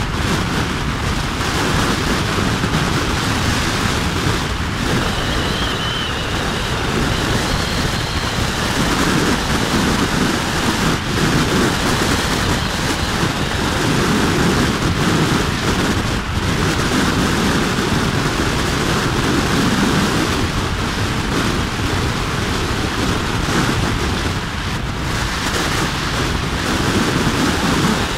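Loud, steady wind rushing over the microphone of a motorbike riding at speed, with the bike's running and tyre noise mixed in beneath it.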